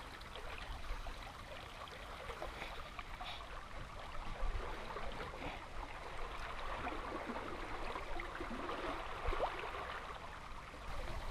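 Water trickling and lapping gently against a boat's hull on an almost windless sea: a soft, steady wash with small splashes.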